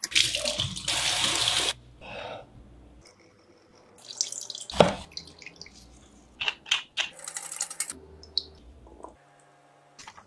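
Kitchen food-prep sounds in quick succession, with no talk. A loud rush of running water opens, lasting about a second and a half. A single sharp knock comes near the middle, followed by a few short clinks and splashes.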